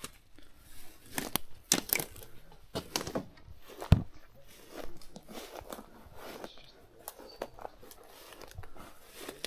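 Footsteps crunching and crackling through dry brush, leaves and twigs, uneven in pace, with one sharper crack about four seconds in.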